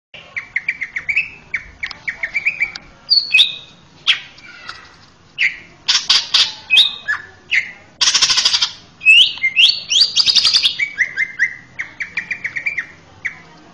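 Male cucak ijo (green leafbird) singing a loud, varied song: runs of quick repeated whistled notes, rising slurs, and a few harsh buzzy notes in the middle.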